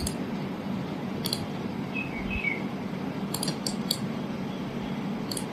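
Computer mouse clicking several times, some clicks in quick pairs, over a steady background hiss and low hum.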